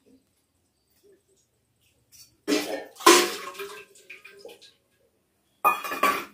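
Water scooped and poured with a steel mug at a large metal pot, splashing in two bursts: a longer one of about two seconds, then a shorter one near the end.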